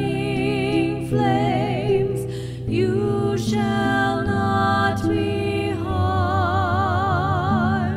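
A woman singing a slow hymn with vibrato, accompanied by a harp.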